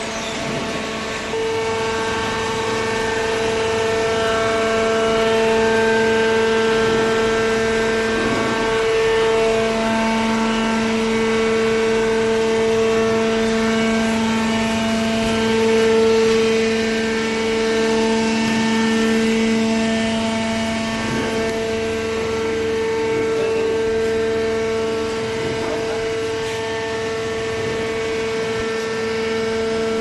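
Horizontal cardboard baler running: a steady machine hum of constant pitch, which gets louder about a second and a half in.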